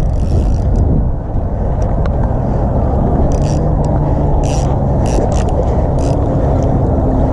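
Wind rumbling steadily on the microphone, with a few faint short clicks as a spinning reel is cranked.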